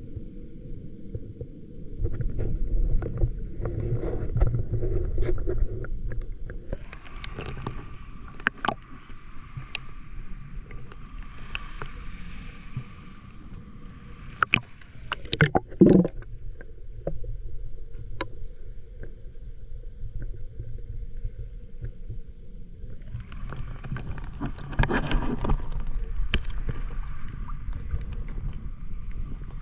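Shallow sea water heard through a GoPro 10 held at or under the surface: a muffled low rumble of moving water with scattered clicks and knocks, and stretches of brighter splashing and hiss as the camera meets the surface. A loud thump about sixteen seconds in.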